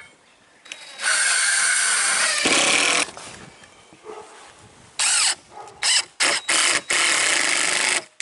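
Cordless 20-volt drill driving 1 5/8-inch exterior deck screws through OSB sheathing into wood strapping. One run of about two seconds, then a quick string of five short bursts near the end.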